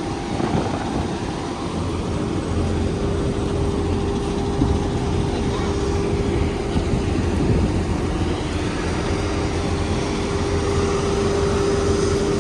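Steady drone of an aircraft's turbine engine running, with a constant hum that grows stronger about two-thirds of the way through.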